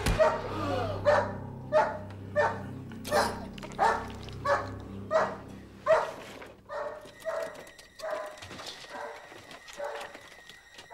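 A dog barking over and over, about one bark every two-thirds of a second, growing fainter after about six seconds. A low hum runs under the first six seconds.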